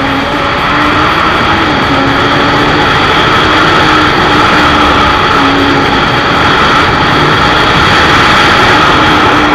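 Motorcycle engine running at a fairly steady speed under heavy wind rush, its note stepping up and down a little.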